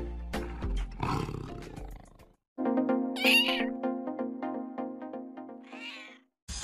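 Background music, over which a domestic cat meows twice: a loud meow about three seconds in and a shorter, fainter one near the end.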